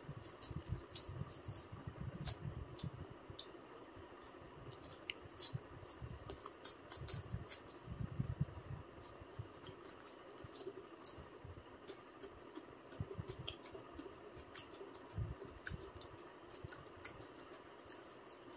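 Close-up eating sounds: chewing and wet mouth clicks, with soft irregular knocks, over a steady low hum.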